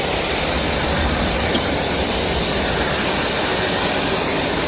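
Electric blower fan of a 6 ft gorilla air waver running, a steady rushing of air as it keeps the inflatable tube figure blown up.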